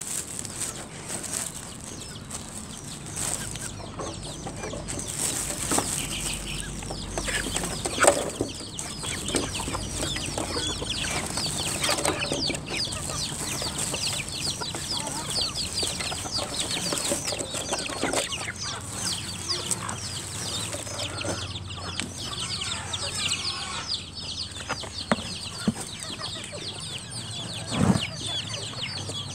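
A flock of chicks cheeping without a break, many short high falling peeps, with a few sharp knocks from the feed being handled, the loudest about eight seconds in.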